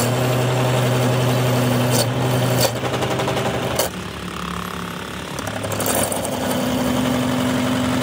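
Metal lathe running with a steel shaft spinning in it: a steady motor hum under a dense mechanical clatter, with a few sharp clicks around the middle. It turns quieter for about a second and a half, then the full sound picks up again.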